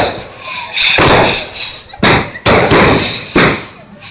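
Fireworks going off in loud bangs, about one a second, each trailing off briefly.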